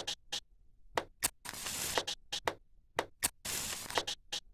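Sparse beat made from sampled found sounds: pairs of sharp clicks repeating about once a second, with longer hissing noise swells rising between them.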